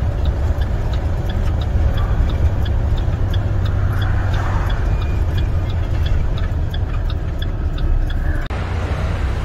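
Semi truck's diesel engine, a MaxxForce 13 in an International tractor, heard from inside the cab while driving: a steady low rumble with road noise. A light, regular ticking about two or three times a second runs over it and fades out about halfway through.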